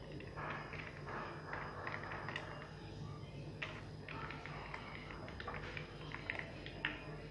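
Faint, irregular crackles and rustles of fingers spreading chopped onion over a crisp fried papad, over a steady low background hum.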